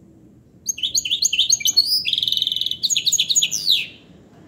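Goldfinch hybrid singing goldfinch-style song: one fast phrase of high twittering notes and downward slurs with a buzzy trill in the middle, starting under a second in and ending with a falling slur about four seconds in.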